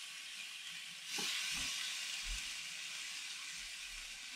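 Steak searing on hot GrillGrates over a charcoal grill: a steady sizzle, with a short click about a second in as the rotated steak is set back down, after which the sizzle grows a little louder.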